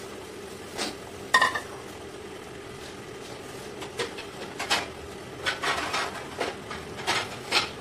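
Utensils and a steel kadai giving a series of light clinks and knocks as capsicum pieces are settled into a simmering curry, one clink ringing briefly. A steady low hiss runs underneath.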